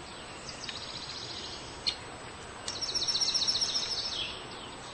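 A small songbird singing: two quick, high trilled phrases, each about a second and a half long, with a short sharp click between them, over a steady background hiss.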